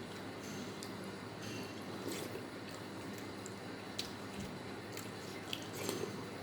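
Someone eating rice with curry: wet chewing with short mouth clicks and smacks every second or so, over a steady low hum.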